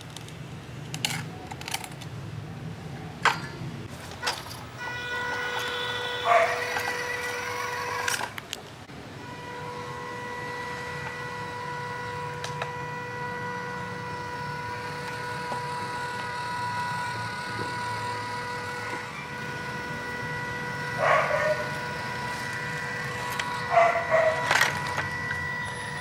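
Small electric motor and gearbox of an RC 4x4 car whining steadily at one pitch, after a few sharp clicks and knocks. Short rattles come up three times.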